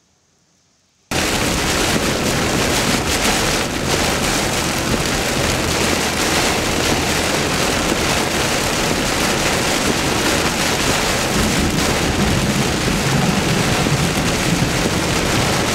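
Heavy rain falling on a vehicle, a loud steady wash of noise that starts abruptly about a second in after near silence.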